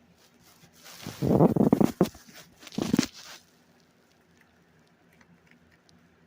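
Cardstock paper being handled and bent around the paper shoe body, rustling in two loud bursts, the first about a second long and the second shorter, about three seconds in.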